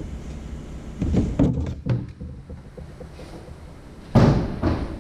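Handling noise as a box of parts and packaging is rummaged through: knocks and rustling about a second in, then two dull thumps near the end, the first the louder.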